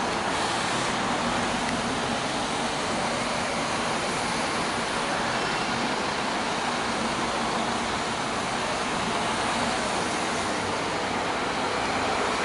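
City buses, among them a MAN, driving past one after another. Their engines and tyres blend into a steady, even traffic rush.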